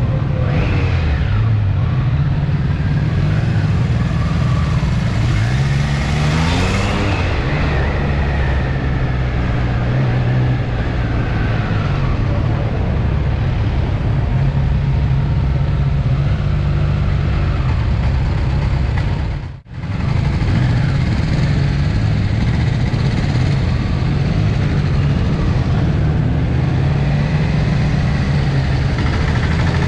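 Motorcycle engine running at road speed with a steady drone under a rush of wind noise. Its pitch rises as the bike accelerates about six seconds in. The sound drops out briefly a little before the twenty-second mark.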